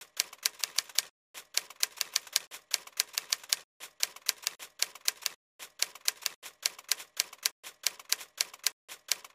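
Typing: quick runs of sharp key clicks, several a second, broken by short pauses about every two seconds.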